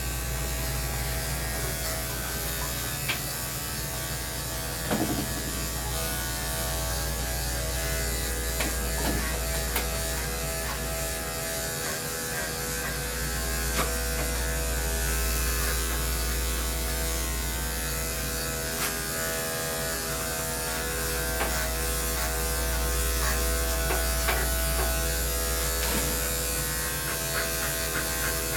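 Electric dog grooming clippers running steadily as they cut through a Portuguese Water Dog's thick coat, with a few brief clicks along the way. A low, steady hum sits underneath.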